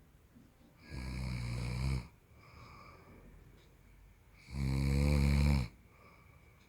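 A man snoring in his sleep: two loud snores, each about a second long and about three and a half seconds apart, with quieter breathing between them.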